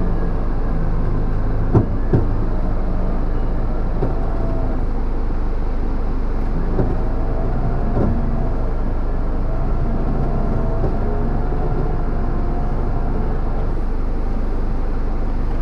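Electric 4x4 recovery winch running in one long pull under load, heard from inside the vehicle's cabin over the engine's steady idle. A few knocks come through, two close together about two seconds in.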